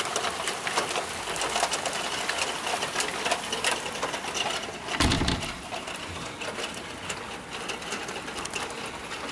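Rain pattering: a steady, dense crackle of countless small drop impacts over a soft hiss. There is a short low thump about five seconds in.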